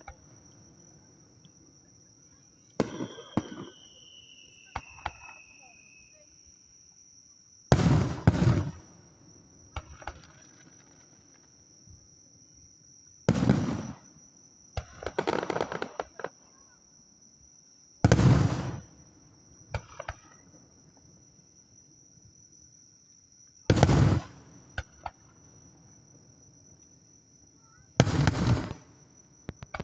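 Aerial fireworks shells bursting, six loud booms about every five seconds, each followed by a brief crackle, with a falling whistle after the first. A steady high insect trill goes on underneath.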